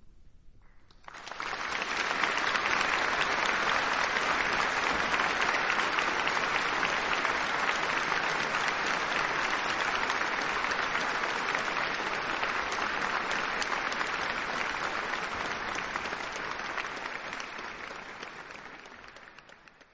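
Audience applauding after the music ends: the clapping begins about a second in, holds steady, and fades out near the end.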